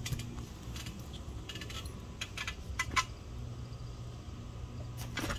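Faint, scattered metallic clinks and ticks from trampoline springs, a few ringing briefly, over a low steady rumble.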